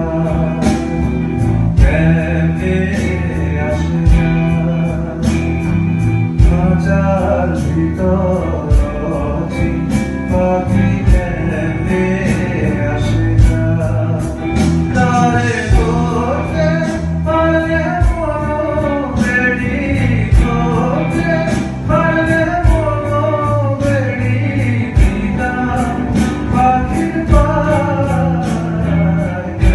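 Live band playing: electric guitars, bass guitar and drum kit keep a steady beat while a harmonica carries a bending lead melody.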